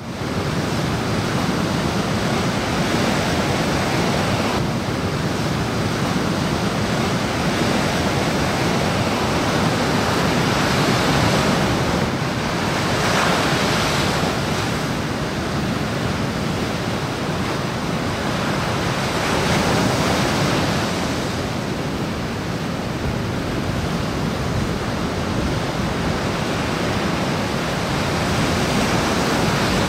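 Heavy sea surf breaking and crashing onto the shore and against rocks and concrete breakwater blocks, a continuous loud rush of breaking waves that swells and eases as each set comes in.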